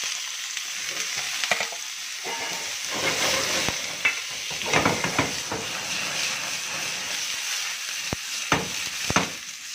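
Cubed raw chicken sizzling in hot oil in a frying pan, a steady hiss, with a utensil knocking and scraping against the pan several times as the pieces are stirred.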